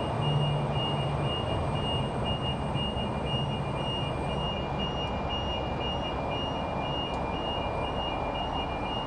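A train rumbling steadily past while a level crossing's electronic warning bell beeps on and off at an even, quick rate.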